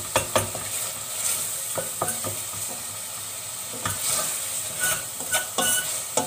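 Minced meat and diced carrots sizzling as they sauté in a stainless steel pot, while a wooden spoon stirs them and knocks against the side of the pot now and then.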